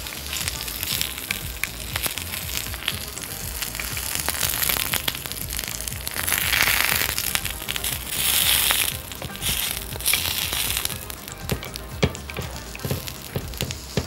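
Sliced eggplant sizzling on a hot ridged grill pan while the slices are turned with metal tongs, with light clicks of the tongs on the pan. The sizzle swells louder twice in the second half.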